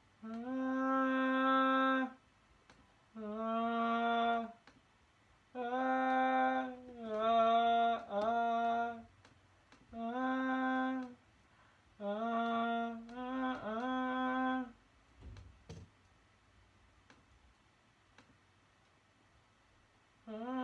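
A voice singing a slow wordless melody: a string of about nine held notes of a second or two each, some scooping up into pitch, with short pauses between them. A soft bump and a click come about two-thirds of the way through, and another note begins near the end.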